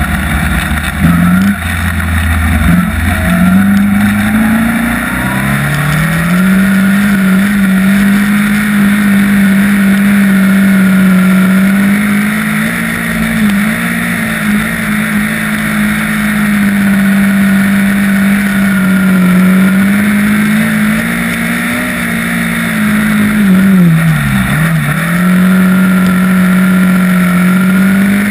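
Midget race car's Ford Focus-based four-cylinder engine running at high revs, heard from the cockpit. The pitch climbs over the first few seconds, then holds steady, dipping briefly and climbing back several times, most deeply about three-quarters of the way through.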